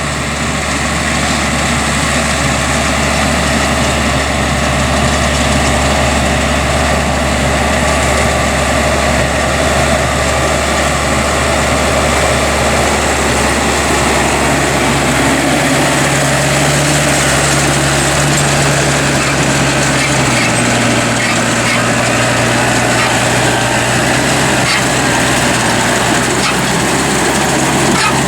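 Diesel tractor engine running steadily, its low note shifting to a different speed about fifteen seconds in and again about twenty seconds in.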